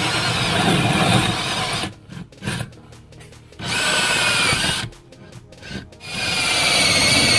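Cordless drill driving a hole saw into the wall to cut a vent hole: the saw grinds through in three spells with short pauses between them, and the last spell carries a high, wavering motor whine.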